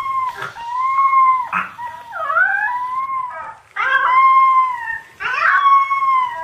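Husky puppy howling: a string of about five drawn-out, high howls, each held at a fairly steady pitch with short breaks between, one in the middle wavering down and back up.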